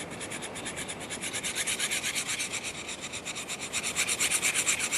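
Steel two-blade broadhead edge being ground back and forth on the coarse side of a diamond sharpening rod with firm pressure, in quick, even strokes that grow louder partway through. This is the stage of raising a burr along the edge.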